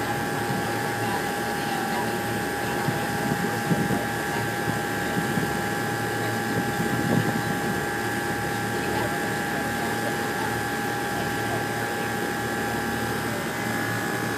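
Passenger ferry's engines running steadily underway: an even drone with a constant whine of several tones. Indistinct voices come and go in the first half.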